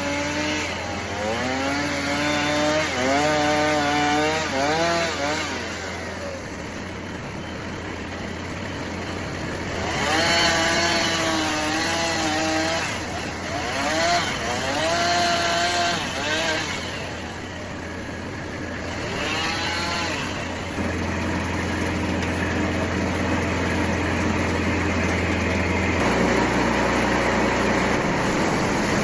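Engine-powered sawing equipment at a portable sawmill: a steady low engine drone, with a second engine revving up and falling back in several spells as the spruce log is cut down.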